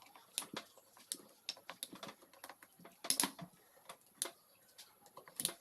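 Irregular light clicks and taps of small engine parts and hand tools being handled, with a louder cluster of knocks a little after three seconds in and another near the end.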